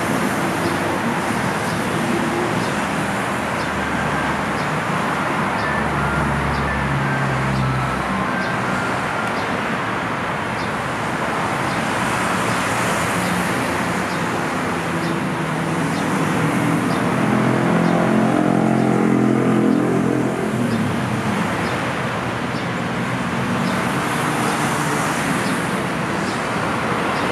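Steady road traffic noise from busy multi-lane roads running alongside an elevated rail line. A louder engine swells and fades as a vehicle passes about two-thirds of the way through.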